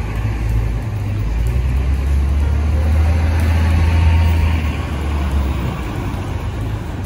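City street traffic, with a heavy vehicle's engine rumbling close by. The rumble swells to its loudest about four seconds in, then eases off.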